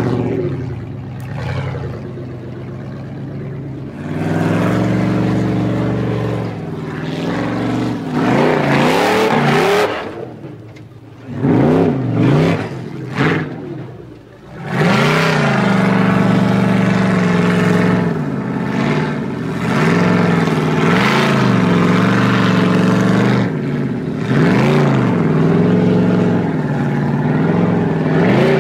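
Formula offroad buggy's engine revving hard under load on a steep dirt climb, the pitch rising and falling again and again as the throttle is worked. It drops off briefly about ten seconds in, then comes back at full revs about fifteen seconds in.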